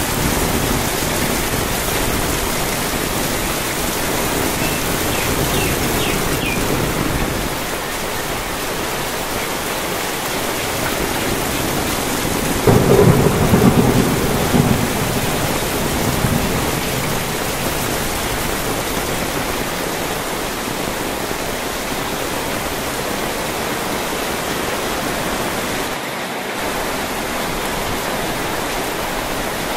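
Heavy rain drumming steadily on an umbrella overhead and on corrugated metal sheeting, with a louder, deeper surge lasting about two seconds near the middle.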